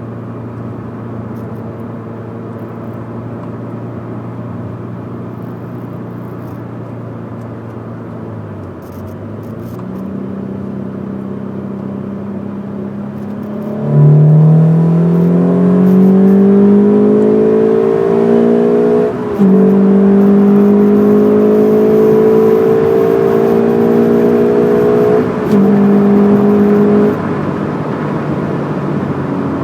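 Scion FR-S 2.0-litre flat-four boxer engine with a Borla unequal-length header, HKS front pipe and Greddy exhaust. It runs at a steady low note, then pulls hard from about fourteen seconds in, rising in pitch through the gears with short breaks at the upshifts just after nineteen and twenty-five seconds. It settles back to cruising a couple of seconds later.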